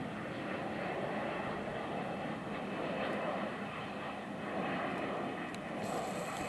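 Airbus A350-1000 landing, the jet noise of its two Rolls-Royce Trent XWB turbofans a steady, even rush as it comes over the runway to touch down.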